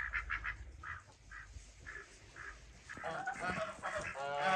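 Farmyard poultry calling: a series of short, clucking calls, then longer, pitched calls from about three seconds in.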